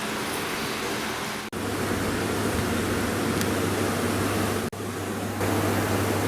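Hot oil sizzling steadily as omapodi (thin gram-flour sev) deep-fries in a large pan. The sound breaks off for an instant twice, and a low hum joins it after the first break.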